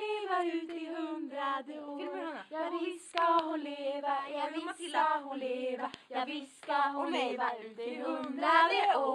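A girl's voice singing unaccompanied, long held notes sliding up and down in pitch, with short breaks between phrases.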